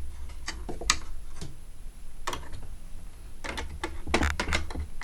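Irregular sharp clicks and taps of plastic and metal parts being handled while a set-top box is taken apart, bunched together near the end, over a low steady hum.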